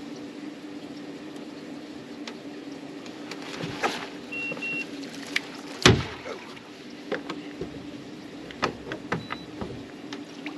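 Steady low electric hum aboard a bass boat, with scattered clicks and knocks, the loudest about six seconds in, and two short electronic beeps a little after four seconds in.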